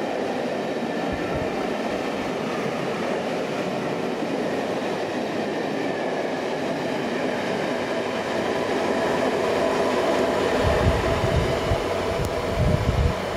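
Train of Pullman coaches passing close at speed behind a steam locomotive: a steady rumble and rush of wheels on the rails. Several loud low thumps come near the end as the last coach goes by.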